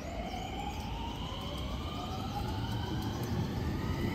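JR West 521 series electric train pulling away from the station, its inverter and traction motors whining in several tones that rise steadily in pitch as it gathers speed, over a low rumble that grows louder.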